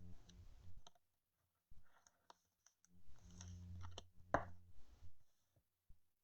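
Faint clicks and taps from trading cards being handled at a table, with the sharpest click about four and a half seconds in.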